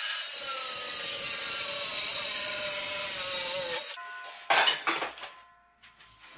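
Cordless circular saw cutting through a white melamine-faced chipboard panel, its pitch sagging slightly under load. The cut stops abruptly about four seconds in, followed by a few light knocks as the board is handled.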